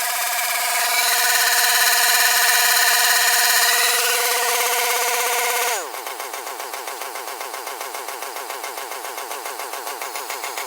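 Brush cutter's small engine running at high revs, then about six seconds in the throttle is let off and it drops quickly to a lower, pulsing idle.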